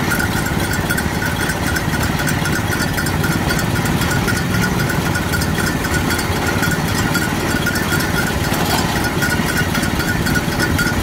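Small engine driving a sugarcane juice crusher, running steadily with a rapid, even beat.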